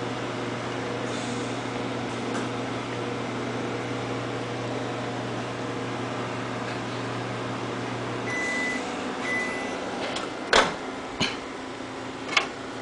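Microwave oven running with a steady hum that stops about eight seconds in, followed by two short high beeps and then a few sharp clicks.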